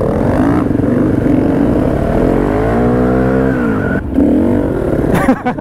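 Single-cylinder supermoto motorcycle engine under way, revving with its pitch rising and falling, and a short break in the sound about four seconds in.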